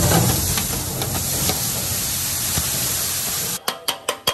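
Steady hissing of a hot street-food griddle, cut off about three and a half seconds in by fast metallic clacking: kothu parotta being chopped with steel tools striking the iron griddle, about six strikes a second.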